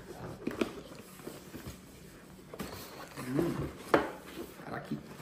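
Cardboard shoe box being handled and opened: the lid rubbing and scraping, a few light taps, and a sharp knock a little under four seconds in, the loudest sound.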